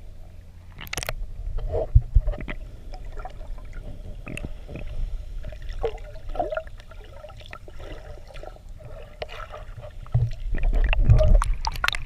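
Sea water heard around a snorkeler's submerged camera: bubbles gurgling and water sloshing over a low rumble, with louder thumps about two seconds in and again near the end.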